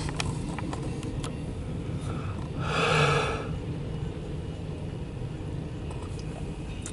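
Freight train running past with a steady low rumble and scattered clicks. A short breathy hiss sounds about three seconds in.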